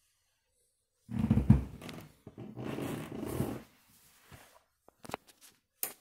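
Front-loading washing machine drum turning a load of shoes in soapy water: sloshing with a heavy thud about a second and a half in, then a few short sharp knocks near the end.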